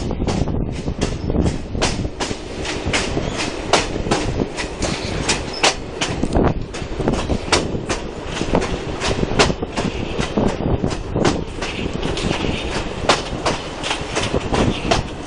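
Steam train's coaches running on the track, heard from an open carriage window: a steady rumble with the wheels clicking and knocking over the rail joints several times a second.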